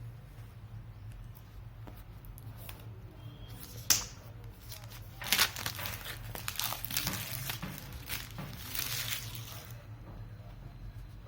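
Phone packaging being torn open and crinkled by hand: a single sharp sound about four seconds in, then several seconds of dense crackling and tearing that stops near the end.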